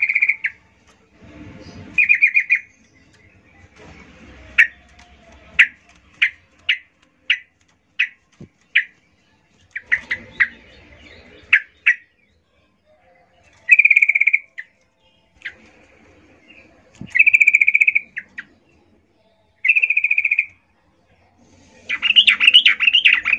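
Female yellow-vented bulbul calling: short harsh chattering calls about half a second long, given several times, with runs of single sharp chips at about one and a half a second in between. A denser burst of chatter comes near the end.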